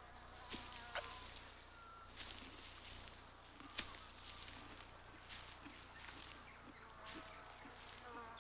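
Faint bush ambience: scattered brief bird chirps and soft rustling clicks, as of animals moving in dry grass.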